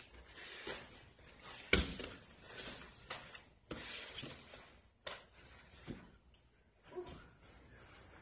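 Thumps and rustling of two grapplers in gis moving and landing on foam mats during a guard pass and armbar, with the loudest thump about two seconds in and several smaller ones after.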